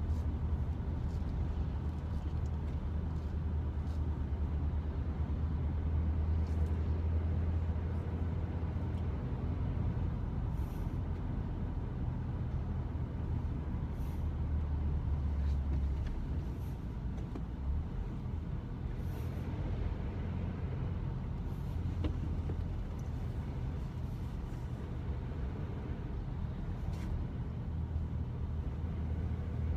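Steady low rumble of a car's engine and tyres on the road, heard from inside the cabin while driving at a constant speed, with a few faint ticks.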